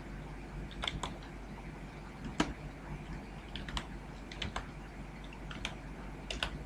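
Computer keyboard keystrokes: slow, irregular single key presses, about ten in all, typing a short name over a steady low hum.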